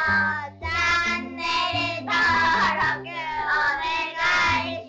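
Jingle-style music with a high, childlike sung vocal in short phrases over a stepping bass line.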